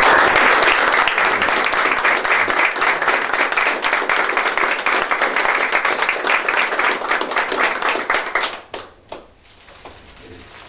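Audience applauding, many hands clapping at once; it starts suddenly and dies away after about eight seconds.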